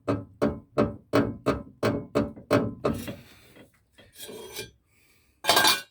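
Squeaking front ball joint on a VAZ 2114, giving a regular run of creaks about three a second, then fading into a few fainter scrapes. A loud short scrape comes near the end. The owner thinks the grease has leaked out of the joint and it has run dry.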